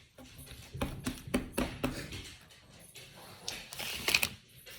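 Slime made of clear slime mixed with soft clay being folded and squeezed by hand: irregular sticky clicks and squelches, with a louder crackling stretch near the end.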